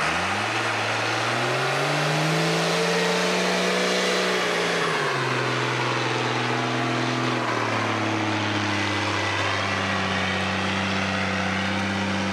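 Home-built heavy truck's engine working hard in deep mud. It revs up over the first two seconds, holds high, falls back about five seconds in, drops again a little later and then runs steady at a lower speed.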